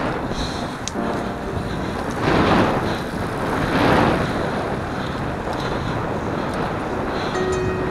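Wind rushing over the microphone of a camera on a road bike ridden at speed, with two louder gusts about two and a half and four seconds in.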